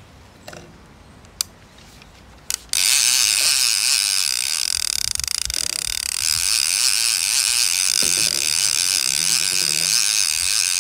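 A few sharp clicks, then about two and a half seconds in the ratchet clicker of a conventional barrel-type fishing reel starts buzzing loudly and continuously as the spool turns.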